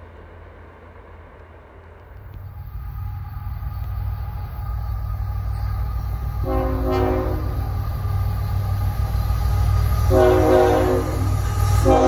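Freight locomotive IC 3008 sounding its multi-chime air horn in two blasts, about a second and a second and a half long, giving a horn show. Under the horn is the low rumble of the approaching train, which grows louder from about two seconds in.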